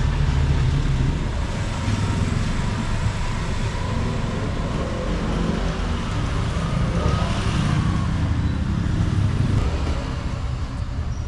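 Road traffic passing close by: a steady, uneven low rumble of vehicles, with one passing louder about seven seconds in.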